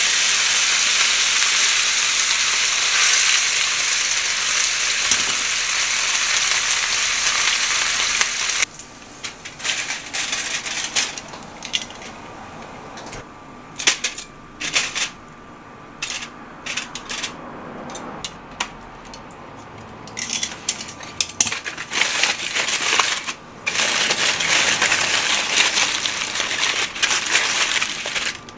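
Steak sizzling in a hot frying pan, a steady loud hiss that cuts off suddenly about nine seconds in. Then scattered clicks and rustles of metal tongs and aluminium foil as the steak is laid on the foil, and in the last third, aluminium foil crinkling continuously as it is folded and pressed around the steak.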